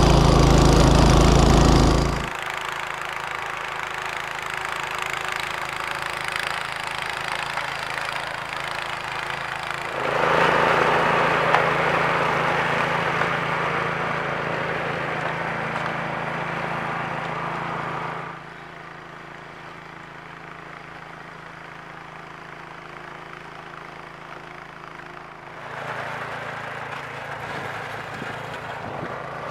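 Two-stage snowblower's small engine running steadily under load while its auger churns and throws snow. The level drops sharply about two seconds in, rises about ten seconds in, drops again around eighteen seconds and rises near the end.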